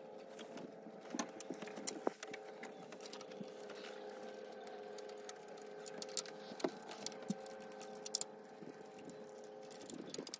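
Hand ratchet clicking in short runs as bolts are driven into the top of a Volvo Penta marine engine, with light metallic clinks of tool and bolts, over a faint steady hum.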